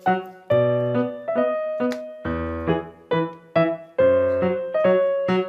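Background piano music, notes struck about twice a second, each dying away, with low bass notes under some of them.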